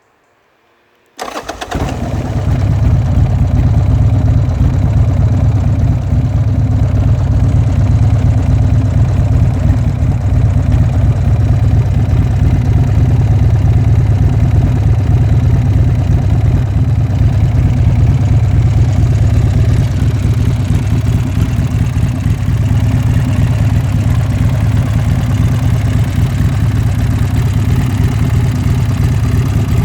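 Buell X1 Lightning's air-cooled V-twin starting about a second in, catching at once and settling into a steady idle.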